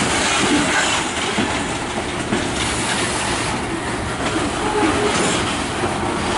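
Freight train of covered hopper cars rolling past, with steady wheel-on-rail noise.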